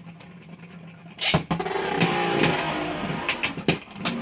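Beyblade Burst tops spinning and clashing in a plastic stadium: a loud clack about a second in as they go in, then a steady whirring scrape broken by sharp clacks of the tops hitting each other, several in quick succession near the end.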